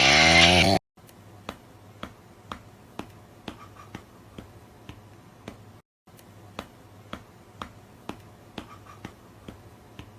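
A loud pitched, voice-like sound cuts off suddenly just under a second in. It is followed by quiet, evenly spaced ticks or snaps, about two a second, with a brief break midway.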